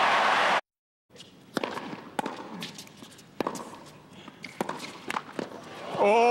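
Crowd noise cuts off, then a tennis rally: sharp pops of racket strikes and ball bounces, spaced about half a second to a second apart. Near the end the crowd erupts, led by a loud sustained shout.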